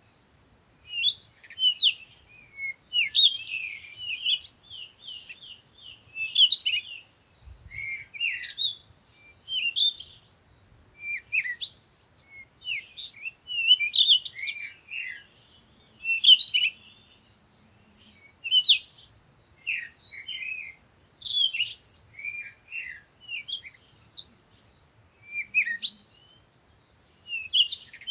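Morning birds chirping and singing: short phrases of quick, high chirps, a new phrase every second or two with brief pauses between.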